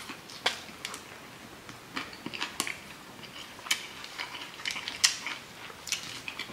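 Chewing a toasted wheat-bread sub sandwich close to the mouth: irregular, super crunchy crackles of the toasted crust with small mouth clicks.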